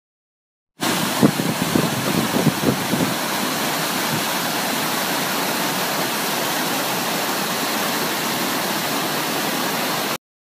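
River cascade: white water pouring over a rocky ledge in a steady, even rush. It starts abruptly about a second in and cuts off just before the end, with some low buffeting, likely wind on the phone's microphone, in the first couple of seconds.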